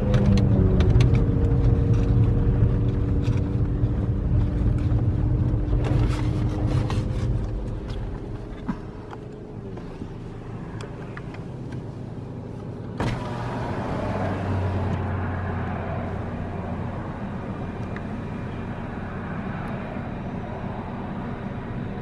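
Car driving, heard from inside the cabin: a loud low engine and road rumble with a few steady tones that fades about eight seconds in. About thirteen seconds in the hiss rises suddenly, with a steady low hum under it.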